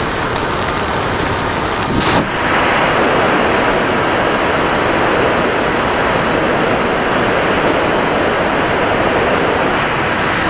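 Steady rushing of the airstream over the onboard camera's microphone on an RC glider in flight. A thin high whine runs with it for the first two seconds and cuts off abruptly, leaving the wind noise alone.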